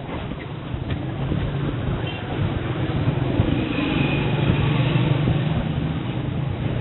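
Busy street traffic: vehicle engines running close by over general road noise, growing louder a few seconds in.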